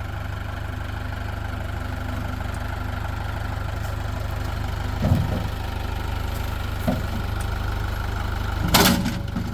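Tractor engine idling steadily, with a thump about five seconds in and a louder clank near the end.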